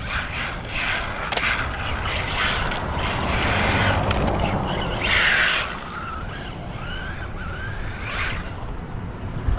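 A brushless 1/14-scale RC truck drifting, its tyres scrubbing across the ground in hissing bursts, the loudest about five seconds in, while the electric motor whines up and down. Wind rumbles on the microphone.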